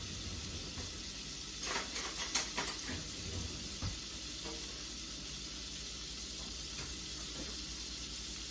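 Chopped onions sizzling steadily in melted butter in a pan, with a short run of clatter and scraping about two seconds in as a utensil stirs them.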